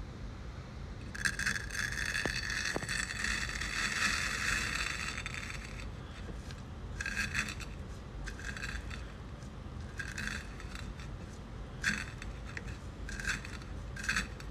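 Apple snail egg clutches crushed under a metal wire potato masher on a ceramic plate: a few seconds of dense crackling as the eggs burst, then several short crunches as the masher is pressed down again.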